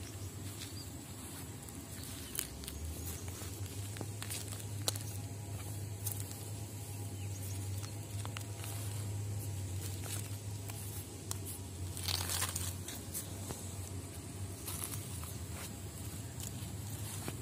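Footsteps crunching and scuffing on a bed of river pebbles and gravel, over a steady low rumble, with a few sharp clicks and a louder rustle about twelve seconds in.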